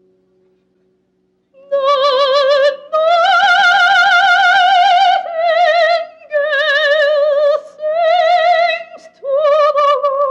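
Operatic soprano singing held notes with steady vibrato in several phrases, entering about a second and a half in over a soft accompaniment.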